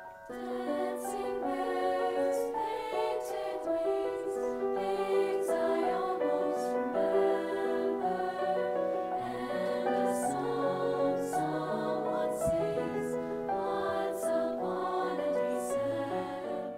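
A women's choir singing in harmony with grand piano accompaniment, in long held notes.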